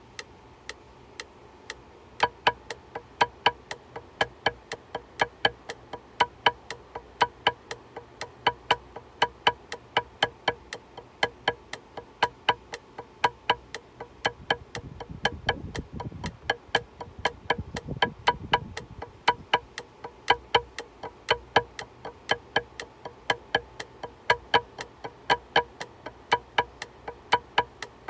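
Electronic metronome clicking at a fast, perfectly even tempo, each click a short pitched beep, keeping time for drum practice.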